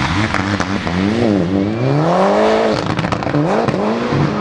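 Rally car engine revving hard while the car slides through a corner. The pitch dips and rises, climbs for about a second and drops off sharply, then picks up again, with a few sharp cracks.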